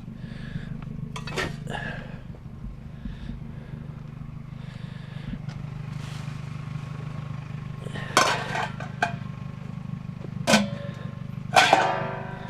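A vehicle engine idling with a steady low hum, while metal cookware pieces clank and rattle as they are handled, with the loudest clanks in the last few seconds.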